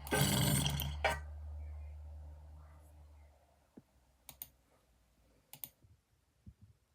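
A person snoring: a loud, rasping snore breath in the first second, followed by a low hum that fades away over the next couple of seconds. A few sharp clicks come later.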